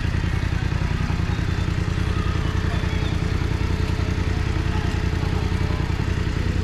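BMW F900R's parallel-twin engine and exhaust running steadily at low revs, a fast low throb with no revving. Faint crowd chatter sits under it.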